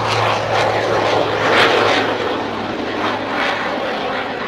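A small aerobatic airplane's engine passing the crowd. The noise swells to its loudest about a second and a half in and then eases off.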